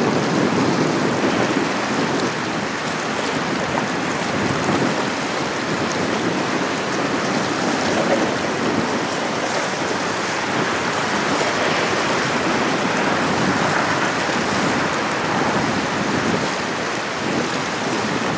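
Steady rushing of wind and small waves on the water, an even noise with no engine tone or horn standing out.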